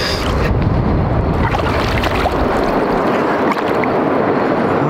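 Steady rush and lapping of river water in the shallows, with wind rumbling on the microphone that eases about three seconds in.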